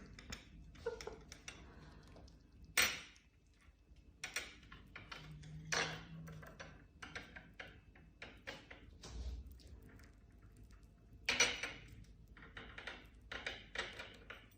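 Scattered, irregular light knocks and clinks of small hard objects, the sharpest about three seconds in and again near eleven seconds.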